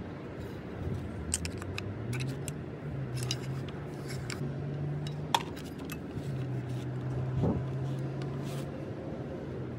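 Small metal clicks and taps as the gear and shaft of a vintage Power-Kraft electric saw are handled and seated in its greasy gear housing, the sharpest click about five seconds in, over a low steady hum.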